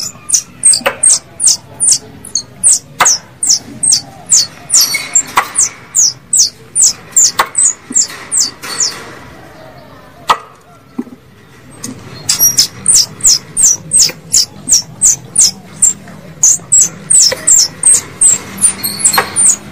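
Plantain squirrel (tupai kelapa) chattering, used as a hunting lure call. It gives a rapid run of sharp, high chirps at about three a second, each falling in pitch, with a few clicks mixed in. The chirps stop for about three seconds in the middle, then start again.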